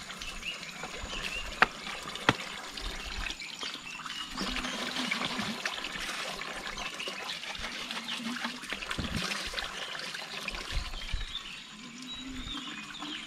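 Spring water pouring steadily from the end of a pipe into a plastic tub, with two sharp clicks about one and a half and two seconds in.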